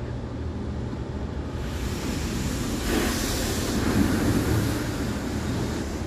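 Automatic carwash water spraying against the car, heard from inside the cabin: a rushing hiss that swells through the middle and then eases, over a steady low rumble.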